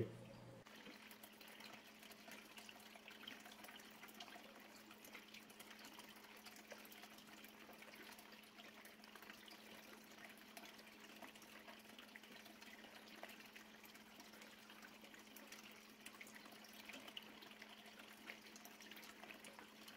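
Faint trickling and dripping of water in an aquarium with an aquaponic planter filter, over a steady low hum.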